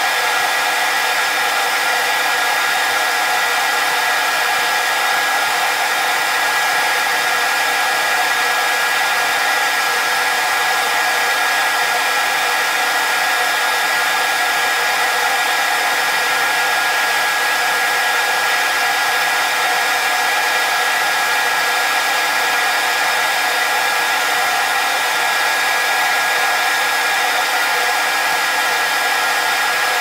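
A shop machine running steadily: an even motor whir and rush of air with a constant high whine, unchanging throughout.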